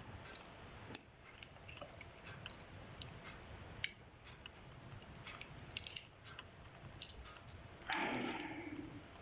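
Scattered light metal clicks and taps of a Leatherman Charge TTi multitool being handled as its tools are folded in during reassembly, with a short louder scrape about eight seconds in.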